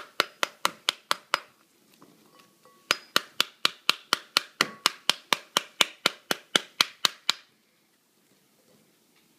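Metal spoon tapping the rind of a pomegranate half, knocking the seeds loose into a bowl. It gives sharp, even taps at about four a second, pauses briefly about 1.5 seconds in, then runs again until it stops near the end.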